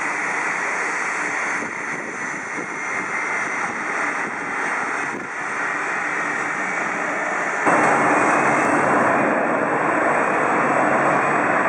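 Jet airliner engine noise, a steady dense rush that jumps abruptly louder about eight seconds in.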